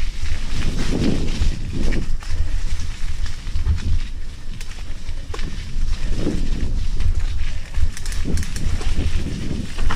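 Mountain bike riding fast down a wet dirt forest trail: knobby tyres rolling and crackling over leaves and twigs, with sharp clicks and rattles from the bike over bumps, all over a steady low rumble of wind and jolts on the bike-mounted camera.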